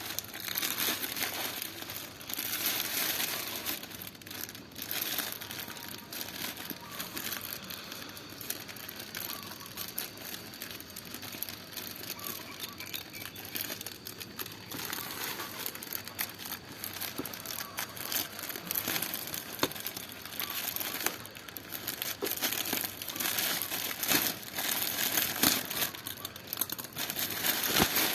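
Parcel packaging being handled and unwrapped by hand, crinkling and rustling with many short crackles.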